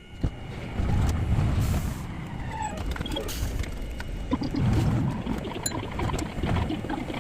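Streetcar running: a loud, uneven rumble of wheels and motor that comes in suddenly just after the start and carries on with irregular surges.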